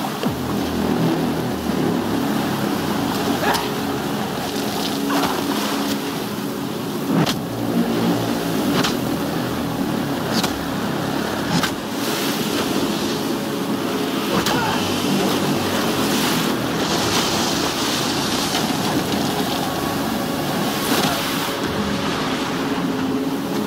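Storm surf and spray rushing steadily under a low, steady drone, with a dozen or so sharp hits and splashes scattered through it.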